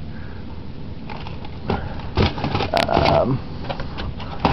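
Frozen food boxes and bags being handled among a freezer's wire shelves: scattered rustles and light knocks, with a brief pitched squeak or whine about three seconds in.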